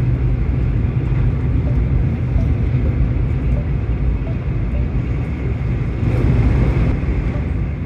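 Steady rumble and rush of a Shinkansen bullet train at speed, heard inside the passenger car. It swells for about a second near the end.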